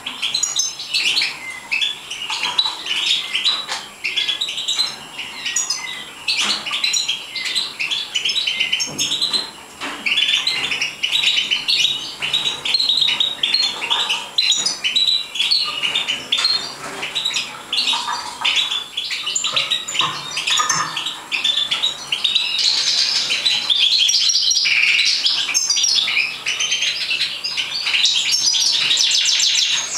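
European goldfinches chirping and twittering in a dense, rapid chatter of short high calls, fuller and more continuous in the last third.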